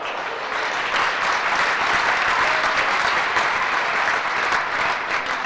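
Arena crowd applauding a point just won in a badminton rally: dense clapping that swells over the first second and thins out near the end.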